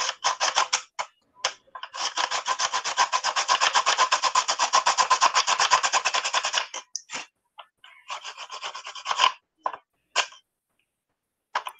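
Rapid, even back-and-forth rubbing or scraping, about ten strokes a second, in one long steady run that breaks off into a few short scattered scrapes and then stops.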